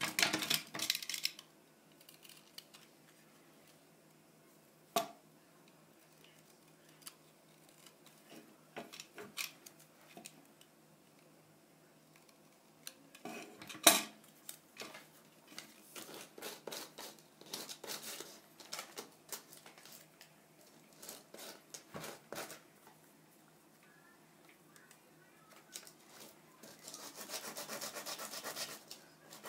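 Hand work on a small wooden model airplane: scattered taps and clicks of wooden parts and tools on the work surface, with short scraping strokes on wood. A sharp click about halfway through is the loudest, and a steadier scraping rasp sets in near the end.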